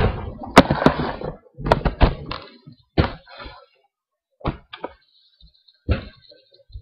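A series of sharp knocks and thuds, closely packed in the first two seconds and then scattered and sparser.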